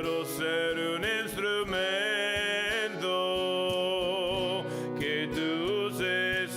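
A slow Spanish-language gospel song: a sung melody with held, wavering notes over guitar accompaniment and a steady beat.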